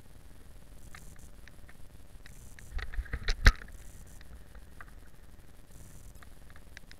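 Handling noise as the rider moves about with the camera: scattered faint clicks, then a brief cluster of rustling and knocks about three seconds in, ending in one sharp knock. No engine can be heard running.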